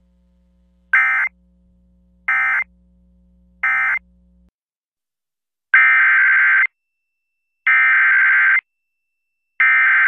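Emergency Alert System SAME digital data bursts, a harsh warbling buzz. First come three short bursts about 1.3 s apart, the end-of-message code closing one alert. After a pause come three longer bursts of about a second each, the header of the next alert, the last still sounding at the end.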